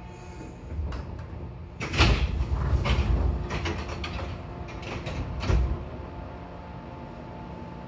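Air-operated sliding passenger doors of a 415 series 500-subseries EMU opening at a station stop: a knock about a second in, then a loud rush with several clunks as the panels slide open, and a last clunk a few seconds later. A steady hum from the car's equipment runs underneath.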